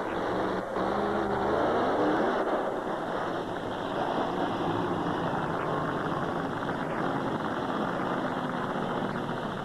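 Jumping combine's engine revving up, its pitch rising about a second in, then running hard as the machine accelerates at the ramp.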